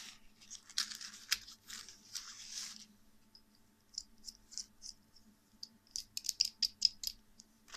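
Handling a screwdriver wallet kit: the leather-look pouch rustles and scrapes against fingers and the bits for about three seconds, then a run of small sharp clicks and taps as the metal screwdriver handle is pulled out and handled, densest near the end.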